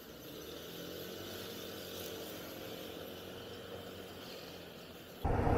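Faint engine and road noise of a Yamaha scooter speeding up. About five seconds in it cuts suddenly to a much louder rush of wind and motorcycle engine noise.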